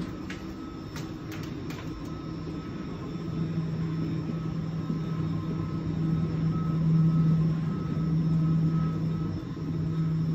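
Running noise inside a driverless Copenhagen Metro train: a steady low hum with rumble that grows louder a few seconds in, and a few light clicks in the first two seconds.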